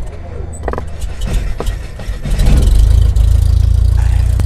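Logo-intro sound effect: a deep rumble with scattered sharp crackles and clicks, swelling louder about two and a half seconds in and then holding.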